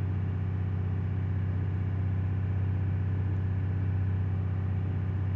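Freshly rebuilt Ford 5.4-litre three-valve SOHC V8 running steadily at a held speed during its first-start break-in run, heard from inside the truck's cab.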